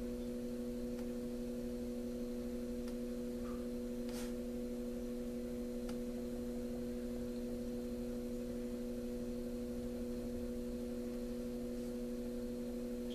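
A steady electrical hum made of a few held tones, with a handful of faint brief clicks.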